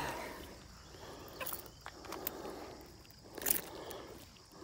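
Handling noise as a small bass is swung out of the water and taken in hand: rustling with scattered light clicks, and one sharp knock about three and a half seconds in.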